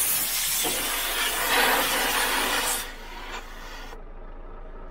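Compressed air hissing loudly through a tyre inflator chuck as a truck tyre is topped up. The hiss deepens about two-thirds of a second in, falls to a fainter hiss near three seconds and stops about a second later.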